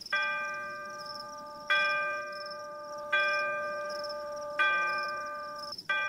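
A clock bell striking midnight: five strikes about a second and a half apart, each ringing on and fading before the next. A steady high chirring of crickets runs underneath.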